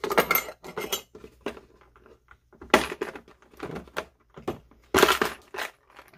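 Hard plastic parts clattering and knocking against a molded plastic tool case as accessories are handled and the plastic accessory box is lifted out: a string of separate sharp knocks, the loudest cluster about five seconds in.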